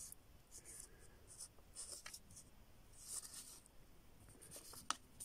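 Faint, scratchy rustling from fingers handling a small plastic horse figurine on a textured mat, with one sharp click near the end.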